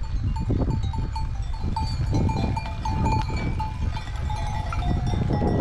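Metal livestock bells clanking irregularly, as from a herd of goats wearing bells, over a steady low rumble.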